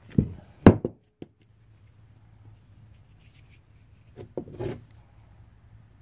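Black iron pipe fittings handled on a workbench: a few sharp metallic knocks and clunks in the first second, then another short cluster of clunks about four and a half seconds in.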